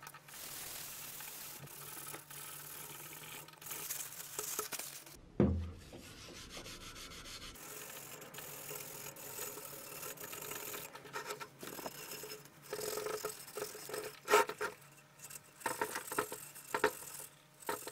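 Green Scotch-Brite abrasive pad rubbed by hand over the bare metal of a manual press with metal cleaner, a steady scrubbing that later breaks into short back-and-forth strokes. A single thump about five seconds in.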